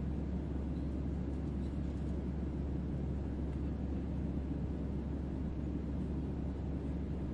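Steady low drone of airliner cabin noise, even and unchanging.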